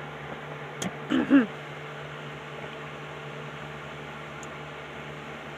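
Two short vocal sounds from a person about a second in, quick notes that bend up and down, then only a steady background hum.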